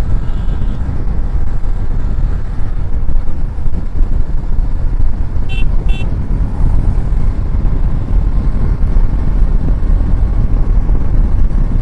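Riding noise on a KTM Duke 390 in traffic: a steady low rumble of wind and engine on the microphone. Two short horn beeps about half a second apart come midway.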